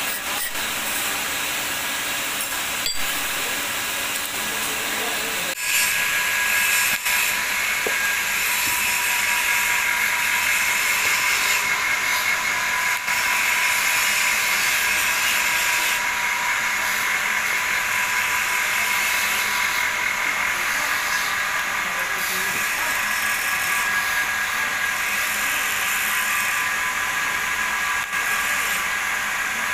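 Argon TIG welding on stainless steel: the arc starts about five and a half seconds in and runs on as a steady hiss with a high whine in it.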